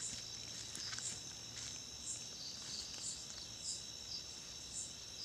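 Insects chirping: a steady high-pitched drone with a high chirp repeating about twice a second.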